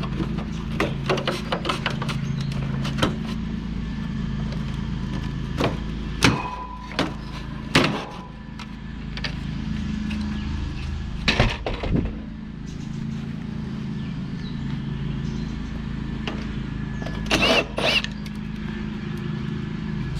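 Scattered metallic clanks, clicks and knocks from an air conditioner being taken apart by hand for scrap, a few of them ringing briefly, over a steady low hum.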